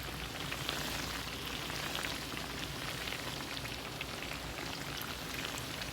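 Salmon patties frying in hot oil in a pan, a steady sizzle with many small pops and crackles.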